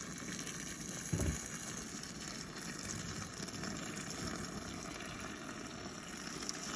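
Hot water pouring in a steady stream from a glass electric kettle into a cooler packed with dried corn husks, a continuous splashing gush. A brief soft bump about a second in.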